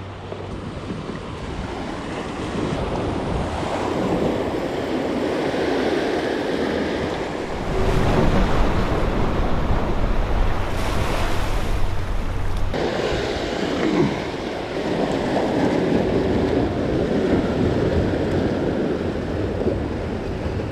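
Ocean surf breaking and washing over jetty rocks, with wind buffeting the microphone. A louder surge of surf about eight seconds in stops abruptly about two-thirds of the way through.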